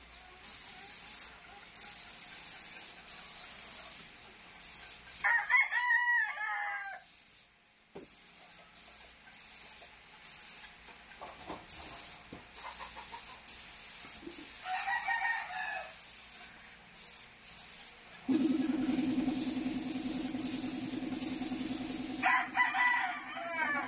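Paint spray gun hissing in short on-off bursts, with a rooster crowing three times in the background. A steady low hum starts about three-quarters of the way through.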